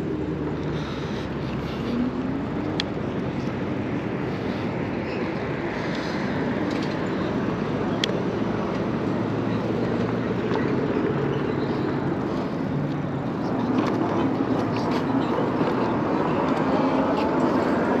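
Steady wind and road noise from riding an e-bike at low speed, with traffic in the background. It grows a little louder near the end as the bike picks up speed.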